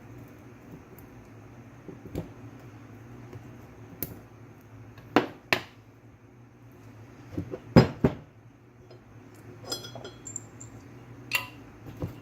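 Small metal parts of a power steering pump being handled and fitted by hand during reassembly: irregular clinks, taps and knocks of metal on metal, with a brief ringing clink near ten seconds.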